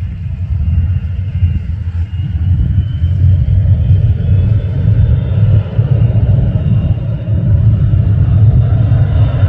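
Distant jet engine of the Spirit of Australia 2 record hydroplane running at speed across the water: a steady low rumbling roar that grows louder about three and a half seconds in.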